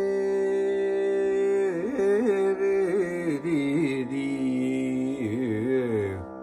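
A steady shruti drone holds one pitch throughout, and about two seconds in a man's voice comes in over it, singing wordless alapana in raga Ghanta with wide oscillating gamakas. The voice breaks off near the end.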